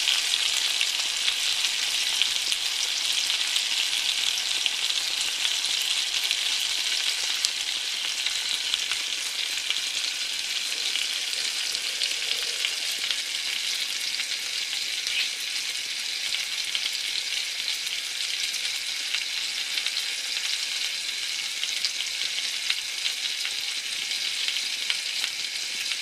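Food frying in a pan: a steady sizzle with fine crackling that eases off a little over the first several seconds and then holds.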